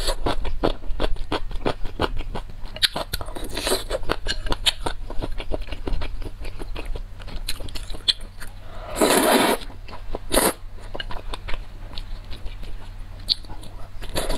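Close-miked eating of noodle soup: steady chewing with many small clicks, and a loud slurp of noodles about nine seconds in, with another slurp starting right at the end.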